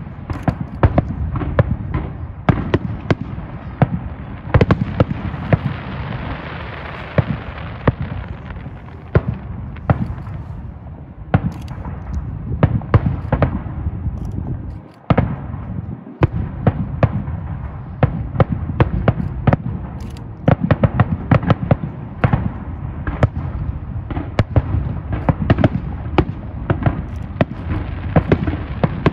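Aerial fireworks display: shells bursting in rapid, overlapping bangs over a continuous crackling hiss, with a brief break about halfway through.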